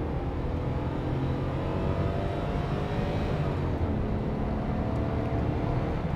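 Jaguar 5.3-litre pre-HE V12 of a 1977 Daimler Double Six Vanden Plas, running on all twelve cylinders and accelerating at full throttle from first gear, heard from inside the cabin. The engine note climbs steadily, dips about four seconds in as the automatic gearbox changes up, then climbs again.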